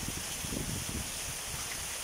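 Steady hiss of heavy rain falling, with a brief low rumble about half a second in.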